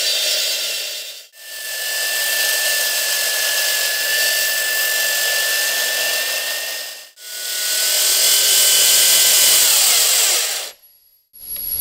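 AGP C14 14-inch electric concrete saw with a diamond blade cutting concrete under a water feed: a loud steady whine over gritty hiss. The sound is split into three stretches by brief drop-outs about a second in and about seven seconds in, and the whine's pitch sags just before a short silence near the end.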